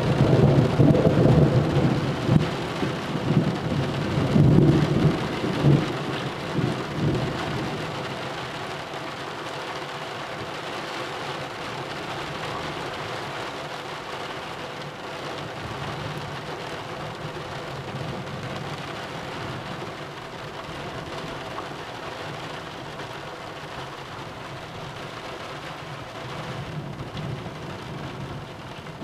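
Thunderstorm: a loud roll of thunder rumbles through the first six or seven seconds, with two louder swells about four and six seconds in, then dies away. Steady rain carries on underneath.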